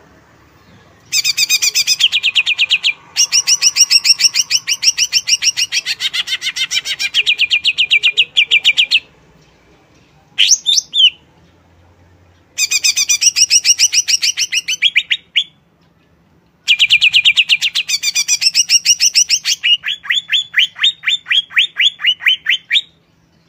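Cucak ijo (green leafbird) singing in loud phrases of rapid machine-gun trills, several seconds each, with a short sweeping call in one of the pauses. The last phrase ends in a run of spaced, falling notes.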